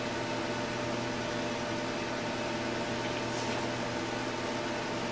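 Treadmill motor running steadily at about 625 RPM: an even hum made of several steady tones over a light hiss.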